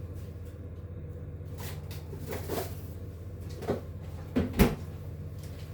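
Refrigerator door being opened and shut, with a few knocks and clunks; the loudest is about four and a half seconds in. A steady low hum runs underneath.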